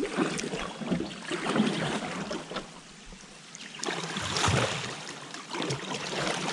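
Canoe paddles dipping and splashing in fast-flowing river water, with water gurgling around the hull, in two swells of splashing.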